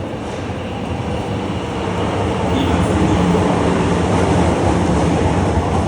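Osaka Metro Midosuji Line subway train running, its rumble growing louder over the first few seconds and then holding steady.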